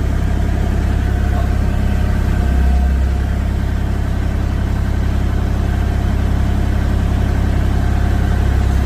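Excavator's diesel engine running steadily at a low, even pitch, swelling briefly about two and a half seconds in.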